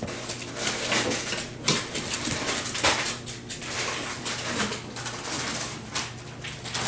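Adult beagle sniffing and licking a young beagle puppy right at the microphone: close snuffling and rustling in quick irregular bursts, over a faint steady low hum.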